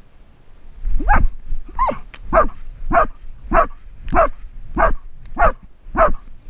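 A dog barking close to the microphone: a steady run of about nine barks, a little under two a second, starting about a second in.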